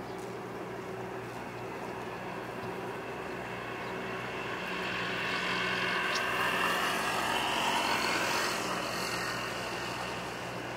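A passing vehicle, swelling from about four seconds in, loudest in the middle, then fading, over a steady low mechanical hum.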